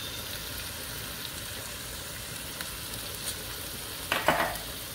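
Onion, tomato and spice masala sizzling steadily as it fries in olive oil in a nonstick pan, with a few faint ticks and one short, louder scrape a little after four seconds in.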